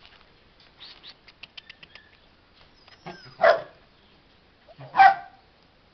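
A dog barks twice, two short sharp barks about a second and a half apart, after a few faint clicks.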